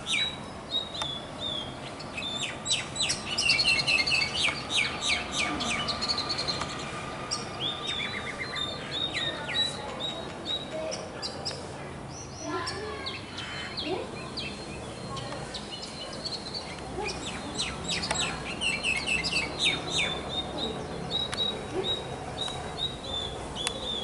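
Common mynas calling: a varied chatter of whistles, chirps, downward glides and rapid clicking notes, coming in repeated bouts with short pauses.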